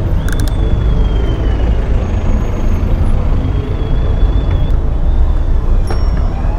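Dense road traffic heard from a bicycle riding between cars and a bus: a steady, heavy low rumble of engines and road noise, with a few sharp clicks about half a second in.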